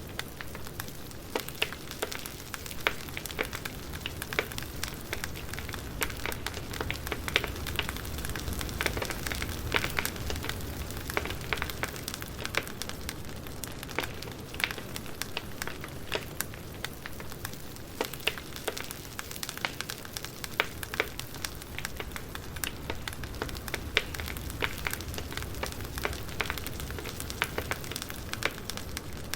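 Campfire burning: wood crackling and popping in many irregular sharp snaps over a steady low rush of flame.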